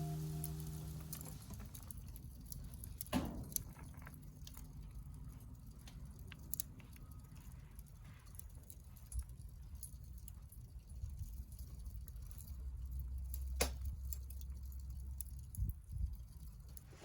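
Small twig-and-wood fire burning in a double-walled stainless bowl fire pit, crackling faintly, with two sharper pops about three seconds in and near fourteen seconds, over a low rumble.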